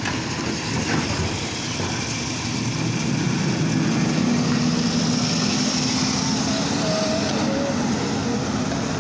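Automated side-loader garbage truck's engine running, a steady low drone that grows louder and rises slightly in pitch about three seconds in as the truck pulls away after its side arm has emptied a cart.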